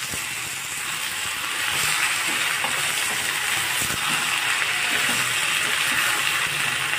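Soya chunks, peas and onions sizzling steadily in a hot kadhai while a metal spoon stirs in tomato purée, with small scrapes and clinks of the spoon against the pan.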